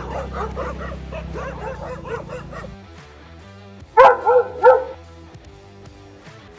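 A dog barking in a quick string of short yaps over background music, then three loud barks in a row about four seconds in.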